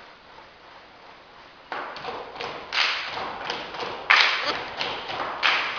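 A series of knocks and thuds, starting suddenly about two seconds in, with the loudest hit about four seconds in.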